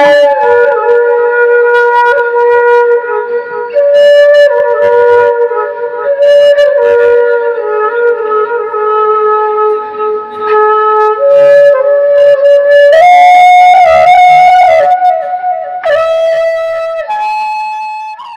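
Bodo folk dance music led by a flute playing a melody of held, stepping notes. It climbs to higher notes about thirteen seconds in and fades out at the end.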